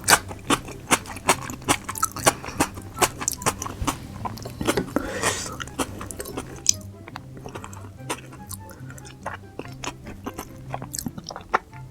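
Close-miked chewing of food in quick, crisp mouthfuls, dense in the first half and sparser in the second. Soft background music plays underneath.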